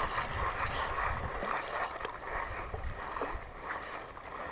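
Shallow seawater sloshing and lapping with wind on the microphone, under the steady whir of a spinning reel being cranked.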